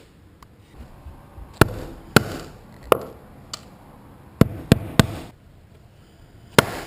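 Hammer striking a pop rivet about seven times at irregular intervals, each a sharp knock, to break off and drive in the leftover rivet stem.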